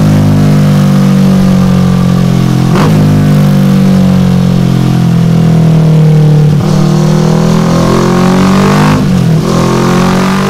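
Kawasaki Versys 650 parallel-twin engine running loud through a Delkevic full exhaust with an oval carbon silencer, holding fairly steady revs. Its note breaks briefly about three, six and a half and nine seconds in.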